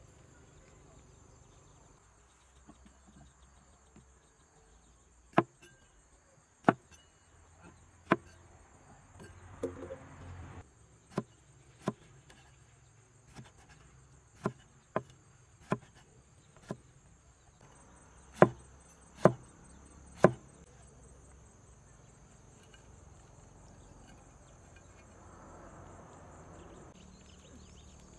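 Cleaver and kitchen knife chopping bitter melon and cucumber on a round wooden cutting board: about a dozen sharp, separate knocks at an uneven pace, the loudest three about a second apart. Insects buzz steadily throughout at a high pitch.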